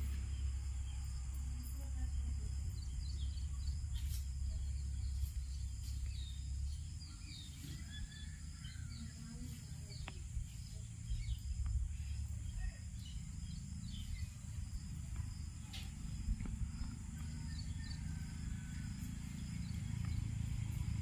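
Outdoor ambience: a steady high insect drone with scattered short bird-like chirps, over a constant low rumble.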